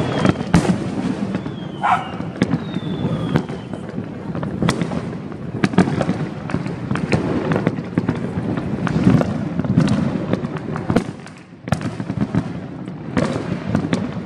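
Fireworks and firecrackers going off all around in a dense, irregular stream of sharp bangs and crackles over a steady low rumble. A couple of short falling whistles come in about two to four seconds in.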